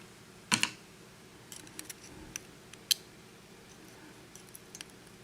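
Small metal clicks from taking the pins out of a disassembled Russwin pin-tumbler lock plug: a loud double click about half a second in, a sharp single click near three seconds, and a few faint ticks.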